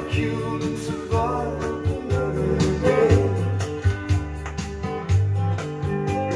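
Guitar music with singing played through a repaired MCS Series stereo receiver during a playback test.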